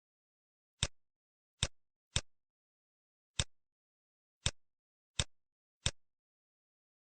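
Computer mouse clicks: seven short, sharp clicks at uneven intervals, with silence in between.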